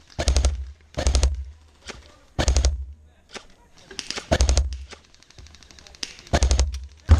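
Airsoft gun firing five short full-auto bursts of rapid clicking shots, with a second or so between bursts.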